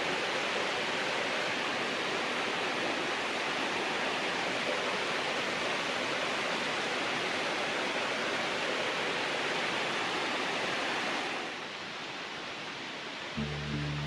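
Steady rush of a waterfall's falling water, dropping quieter about eleven seconds in. Music starts just before the end.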